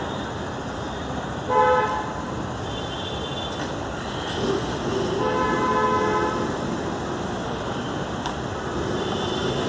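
Vehicle horns sounding in road traffic: a short loud toot about a second and a half in, a longer horn around five to six seconds in, and fainter, higher toots in between and near the end, over a steady traffic hum.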